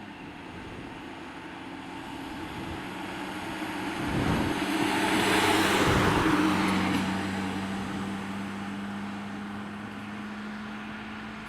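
A fire engine drives past. Its engine and tyre noise swells to a peak about halfway through and then fades, over a steady low engine hum.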